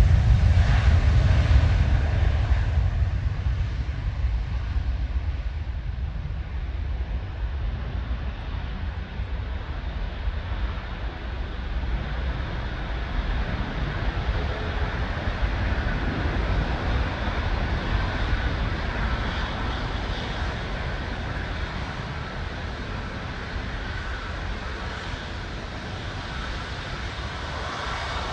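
Airbus A330 jet engines at take-off thrust: a loud, low rumble that slowly fades as the airliner departs, with a faint steady whine above it.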